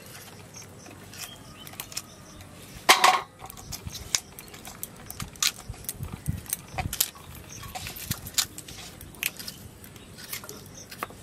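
Fresh pumpkin stems being snapped into short pieces and peeled of their stringy skin by hand: scattered crisp snaps and clicks, the loudest about three seconds in, with the light clink of bangles on the working wrists.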